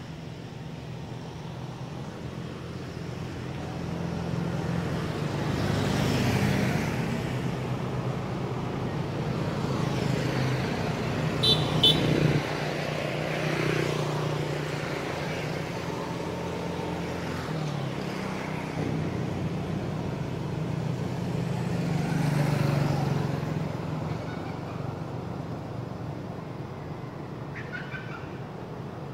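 Road traffic: vehicle engines running steadily, swelling twice as vehicles pass. Two short, high-pitched beeps come about twelve seconds in.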